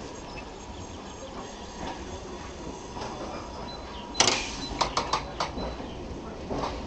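London Underground A Stock train standing at the platform with a steady hum; about four seconds in its sliding doors slam shut with a loud bang, followed by a few sharp knocks and rattles.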